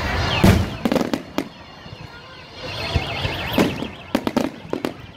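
Fireworks bursting: a cluster of sharp bangs, then a fast warbling whistle, then another cluster of bangs near the end.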